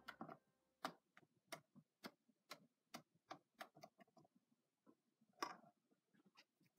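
Wire whisk knocking and scraping against a stainless steel bowl while stirring thick peanut-butter frosting: faint, irregular clicks about three a second, with a louder knock about five and a half seconds in.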